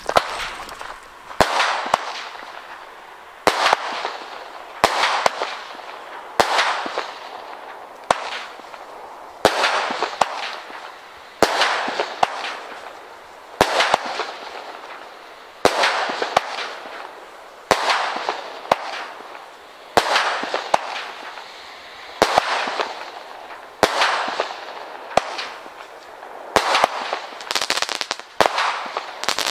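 Consumer firework battery (Mephistos Fire Nico cake) firing its shots in a steady series, roughly one every one to two seconds. Each is a sharp bang followed by a hiss that fades over about a second.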